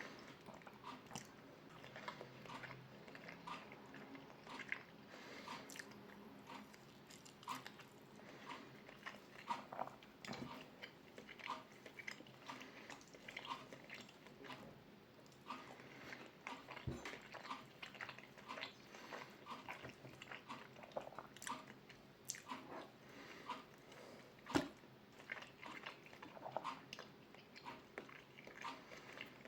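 A person eating an omelette close to the microphone: quiet chewing and mouth sounds with scattered small clicks, one sharper click near the end.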